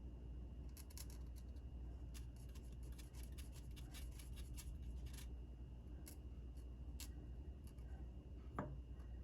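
Faint light clicks and taps of a paint pen and small resin-concrete craft pieces being handled on a work surface, in quick irregular runs, over a steady low hum. A short falling squeak comes near the end.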